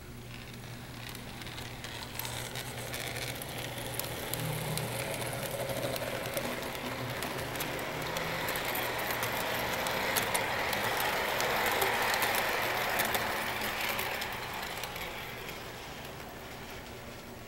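O scale model passenger train rolling along its track, wheels running and clicking over the rail joints, growing louder as it approaches, loudest about ten to thirteen seconds in, then fading as it passes. A steady low hum runs underneath.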